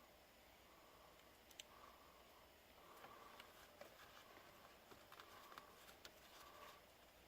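Near silence with faint small clicks and taps of a plastic wiring connector and its wires being handled and fitted to the steering column harness. A faint short hum comes and goes several times.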